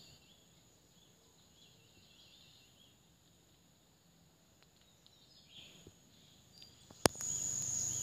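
A steady high insect drone with faint bird chirps, then about seven seconds in a single sharp shot from a Ghost Warrior PCP air rifle; after the shot the insect drone is louder.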